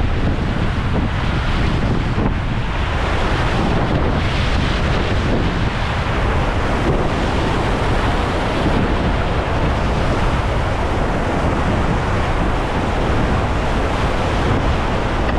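Whitewater rapids: a steady, loud rush of churning river water around a paddled raft, with wind buffeting the microphone.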